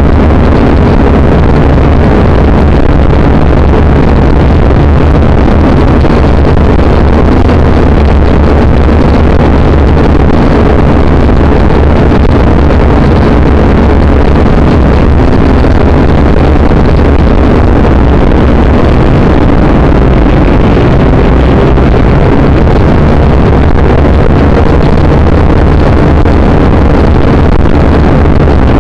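Syma quadcopter's small electric motors and propellers running in flight, heard very close through its own onboard camera microphone: a loud, steady whir with faint humming tones and wind rush.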